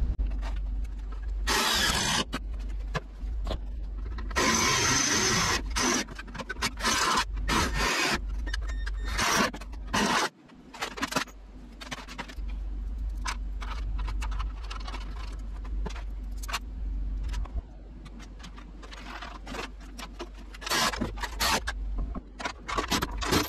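Hand tools and bolts clattering and scraping against a steel truck cab while it is bolted together: many sharp clicks and knocks, with two longer scraping stretches in the first six seconds.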